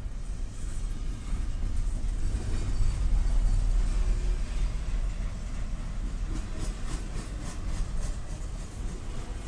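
Double-stack container cars of an intermodal freight train rolling past: a steady low rumble of steel wheels on rail. It grows loudest a few seconds in, and a quick run of rhythmic wheel clicks comes in the second half.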